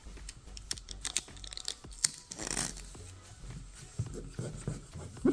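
Packing tape and a plastic windshield repair applicator being handled and pressed onto the glass: scattered small clicks and crinkles, with a short tearing, peeling noise about two and a half seconds in.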